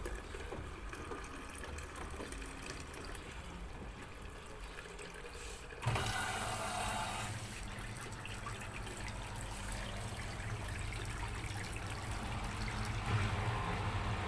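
LG washing machine draining well: water runs steadily out of its drain hose over a steady low hum from the machine. About six seconds in the water noise suddenly gets louder for a second or two.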